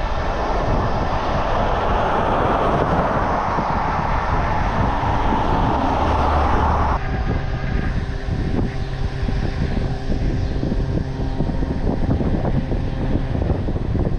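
Road traffic noise heard from a moving bicycle: a loud rushing sound, like a vehicle passing close, builds and then cuts off abruptly about seven seconds in, leaving steadier road and engine noise.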